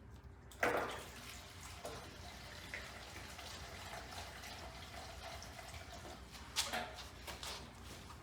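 Gasoline pouring from a gas jug into a small engine's fuel tank: a steady trickle, with a knock about half a second in and another near the end.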